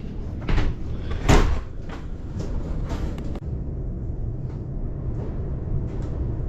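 Strong sandstorm wind on the microphone, with two knocks from the shelter hut's door being handled, the louder about a second and a half in; about three and a half seconds in the sound turns muffled as the door is shut on the gale.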